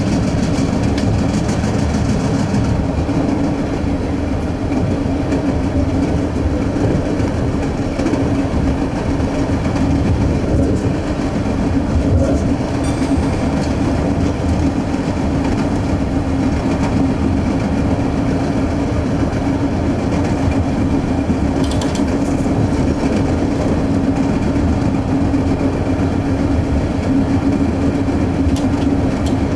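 Diesel suburban railcar running along the track, heard from inside the cab: a steady engine drone with a constant hum over the rumble of the wheels on the rails.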